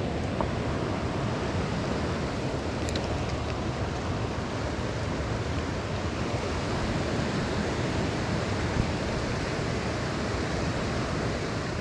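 Shallow river water rushing steadily over a stony riffle.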